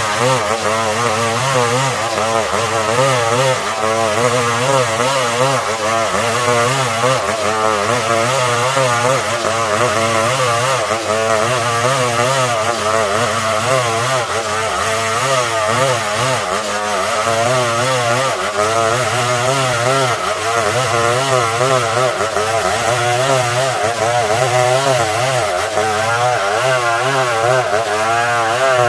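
Stihl 070 two-stroke chainsaw running under load, ripping a log lengthwise into planks, its engine pitch wavering up and down continuously as it cuts.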